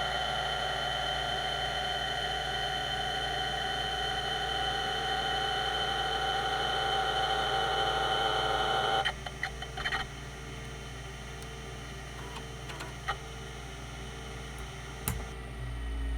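Quantum Q540 5.25-inch voice-coil hard disk drive running with a steady whine of several tones, which cuts off suddenly about nine seconds in, followed by a few clicks and a faint, regular pulsing.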